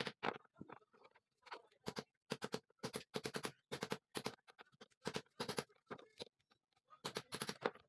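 Light hammer taps and metal clinks on a steel motorcycle rear-suspension link as new bushings are fitted into it. They come in short quick runs of taps with pauses between.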